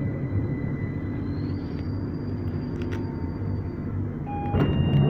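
A 2009 Stock Victoria line train pulling into a platform, heard from inside the carriage: a steady rumble with a faint high motor whine. Near the end it gets louder and short repeated electronic beeps start.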